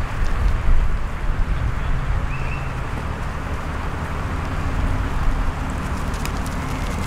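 Coloured smoke cartridge hissing steadily as it pours out pink smoke, with wind rumbling on the microphone.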